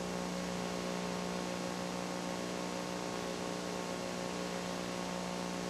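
Steady electrical hum with many overtones over a constant hiss, unchanging throughout, with no other sound.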